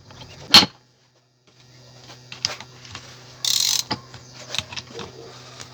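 Metal clicks and knocks of hand tools on a Mercedes W123 rear differential's ring gear: a sharp knock about half a second in, then scattered clicks and a brief rasping burst near the middle, typical of a ratchet wrench working on the gear's locking bolts.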